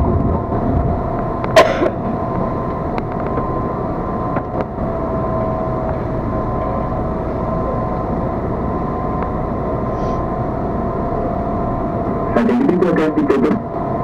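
Electric commuter train standing at a station, heard from on board: a steady hum of its running equipment with two steady tones, broken by a few light clicks and a brief louder, busier sound near the end.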